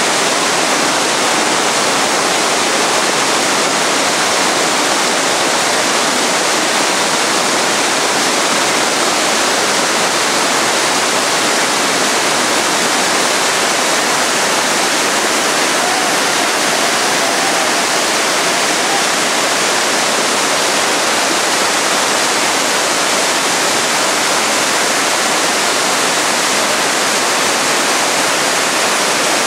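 Whitewater rapids of a mountain river rushing, a loud, steady roar of water that does not let up.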